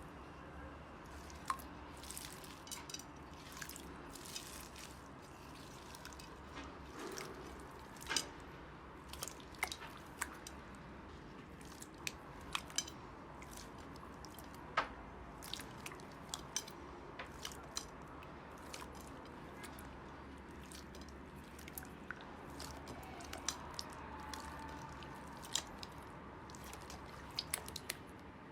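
Slime being squished, with scattered small, sharp, sticky pops and clicks at irregular moments over a faint steady hiss.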